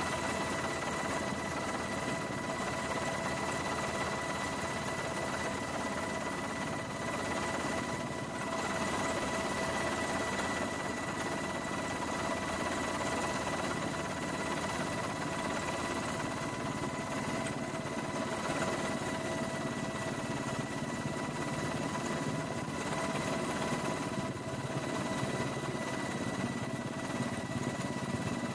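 Helicopter engine and rotor noise, steady and unbroken, with a steady high whine over it.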